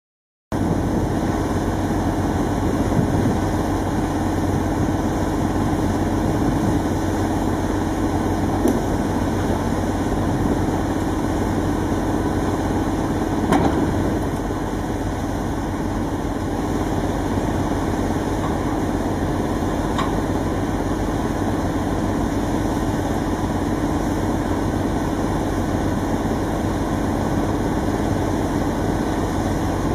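A heavy engine running steadily at a constant speed, with a few faint clicks or knocks, one about a third of the way in and another about two-thirds in.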